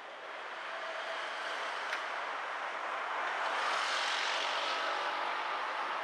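A passing vehicle's rushing noise that swells to a peak about four seconds in and then eases off.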